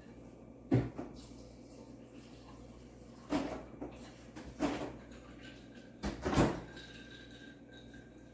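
About four separate clunks and knocks of things being handled in a kitchen, one near the start, two in the middle and a double knock past six seconds in.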